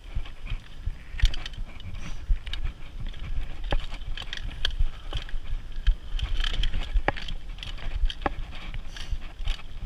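Mountain bike rolling fast down a dirt singletrack: a low rumble of the tyres on the trail, with frequent clicks and knocks as the bike rattles over bumps and roots.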